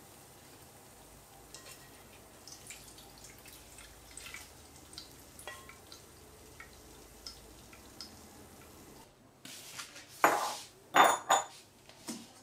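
Oil dripping in faint, scattered ticks from a pan through a fine mesh strainer into a stainless steel bowl. About ten seconds in come a few loud metal clatters as the strainer and steel bowl are handled and the strainer is set on a glass jar.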